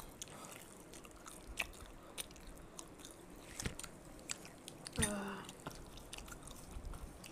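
People chewing and biting into fried snacks, with scattered soft crunches and mouth clicks. A short vocal sound comes about five seconds in.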